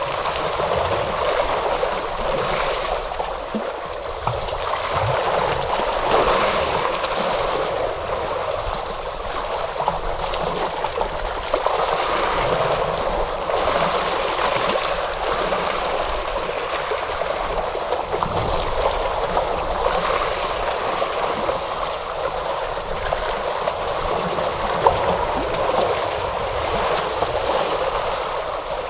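Ocean waves washing onto the shore: a continuous surf wash that swells and eases every few seconds.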